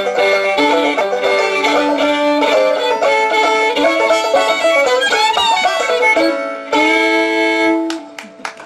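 Old-time fiddle and banjo duet playing a lively tune together. About two thirds of the way through they end on a long held final note that rings and fades out.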